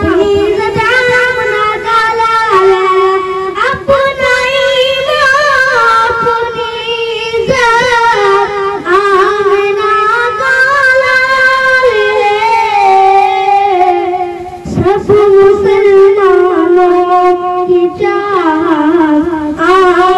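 A boy singing a ghazal solo into a microphone, in long held notes that waver and turn in pitch, with short breaks for breath.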